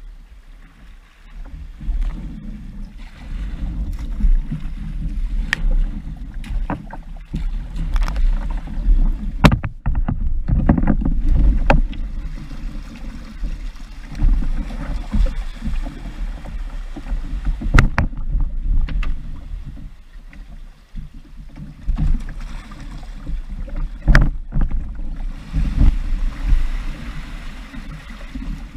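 Kayak hull grinding and knocking over a wet cobblestone boat ramp as it is hauled out of the water: a low, uneven rumble with frequent sharp knocks, starting about a second and a half in.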